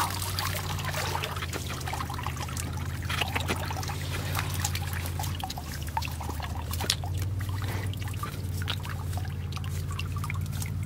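Water trickling and dripping, with many small scattered clicks and rustles as wet fish, mud and grass are handled in a woven bamboo basket. A steady low hum runs underneath.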